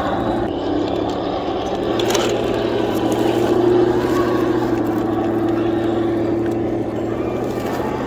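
Heng Long 1/16 Tiger 1 RC tank running over dry leaf litter, its electric drive and plastic gears and tracks giving a steady hum and whir with the tracks rustling through the leaves. The hum's pitch rises a little about three seconds in and then holds, with a single click about two seconds in.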